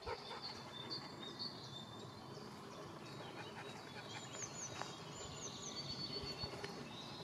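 Songbirds singing: short high notes repeated at a steady pace, then a few down-slurred phrases and a held high note, over a steady background hiss.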